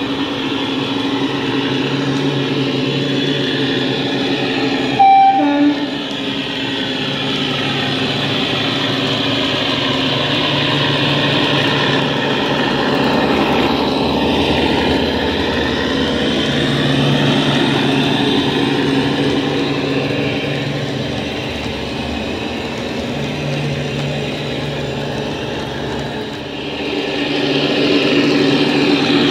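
Class 52 Western diesel-hydraulic locomotive sound from a Howes DCC sound decoder through an EM2 speaker in a Dapol model: the engine running under power, its note rising and falling. A short two-tone horn sounds about five seconds in, high then low.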